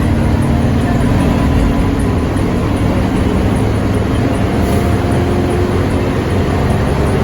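Bus engine running with a steady low rumble; no horn sounds.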